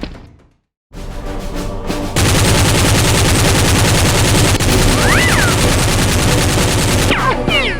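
Music cuts out briefly, then a sustained burst of rapid automatic gunfire starts about two seconds in, with short whizzing glides over it near the middle and the end, and music still underneath.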